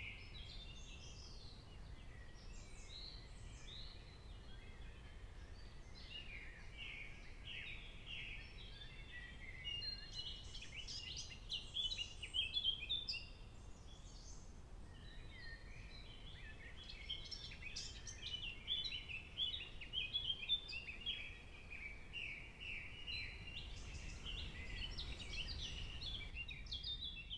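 Songbirds singing in a busy chorus of quick chirps and short, rapid note runs, over a faint low background rumble.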